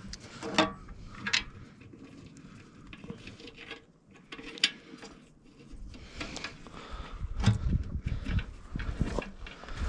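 Scattered sharp clinks and knocks of parts being handled, a few single hits in the first five seconds, then a stretch of denser low bumping and knocking.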